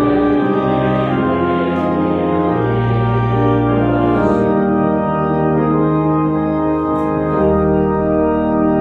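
Organ playing slow, sustained chords over a held bass line, the chords changing every second or so.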